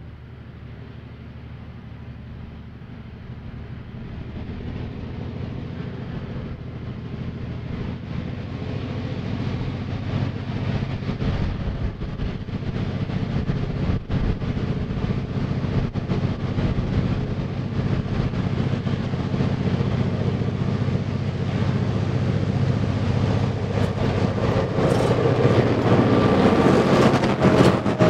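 Heritage diesel locomotive hauling a short train approaches, its engine growing steadily louder as it draws near. In the last few seconds it passes close, and the wheels of the carriage and goods wagons clatter over the rail joints.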